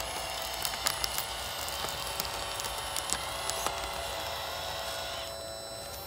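A 1/14 scale RC bulldozer's geared electric track-drive motors whining steadily as it crawls through loose dirt, with scattered clicks. The whine drops about five seconds in.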